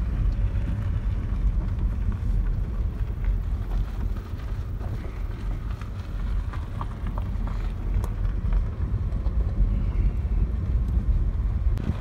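Car driving slowly on a rough gravel road, heard from inside: a steady low rumble of tyres and engine, with a few light ticks near the middle.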